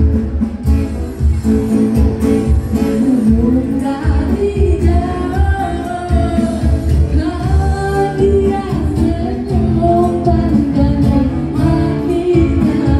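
A pop song with a singing voice over a heavy bass beat, played loud through a PA sound system in a large hall.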